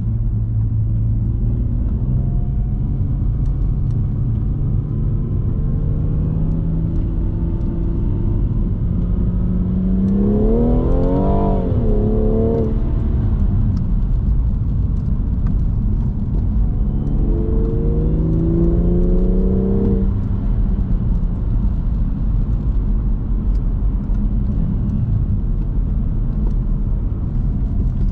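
2018 BMW M240i's turbocharged 3.0-litre straight-six engine pulling on the road. Its pitch climbs under acceleration and drops off abruptly twice. It begins climbing again near the end.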